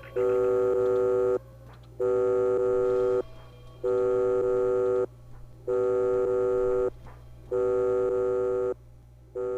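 Electronic buzzing tone like a telephone ring or busy signal, repeating in bursts of a bit over a second with short gaps between them, five times and starting a sixth near the end.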